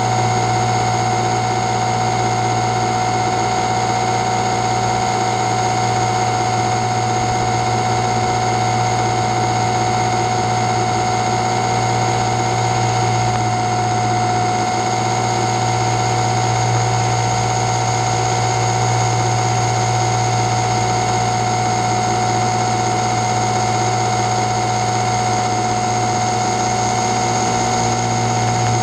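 Multirotor drone's electric motors and propellers running, a steady buzzing whine at an even pitch.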